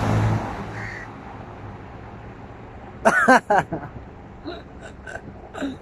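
A car engine idling that cuts off about half a second in, leaving quiet open-air background. About three seconds in there is a short burst of a man's voice.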